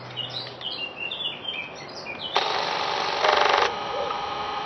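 Birds chirping, then about halfway in a Super 8 film projector's mechanism starts a loud, fast rattle that eases slightly and runs on to the end; a listener calls it an abnormal noise.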